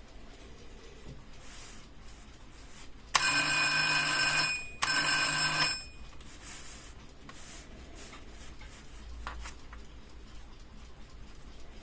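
Tokyo Tokei No. 570 tulip alarm clock's alarm ringing in two loud bursts, the first about a second and a half long and the second about a second after a short break, then stopping.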